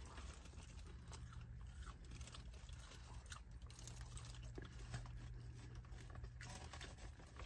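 A person chewing a bite of battered honey sesame chicken close to the microphone: faint, irregular soft mouth clicks and chewing noises.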